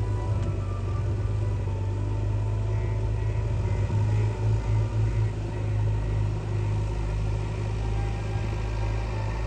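A heavy engine running steadily, with a deep low rumble that wavers briefly about halfway through.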